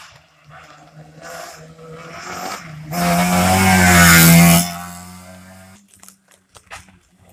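Rally car passing flat out on a special stage: its engine note builds as it approaches and is loudest with a rushing noise for about a second and a half as it goes by close, about three seconds in. The sound then drops suddenly to a lower engine note that fades away.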